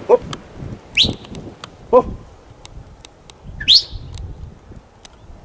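Wild birds calling: two short, loud rising chirps, one about a second in and one near the end, and between them two lower, pulsed call notes at the start and about two seconds in.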